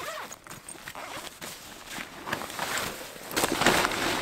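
Irregular rustling and scuffing of tall grass and fabric as a person moves about and rummages through a nylon backpack, louder from about three seconds in.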